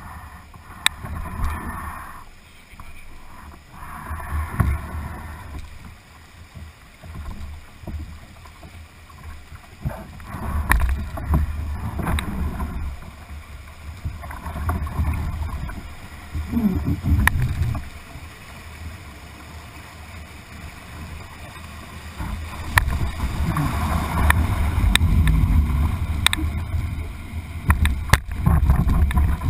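Whitewater rushing and splashing against a canoe's bow, picked up by a camera low on the deck. There is a deep, uneven rumble of water and buffeting, with a few sharp knocks.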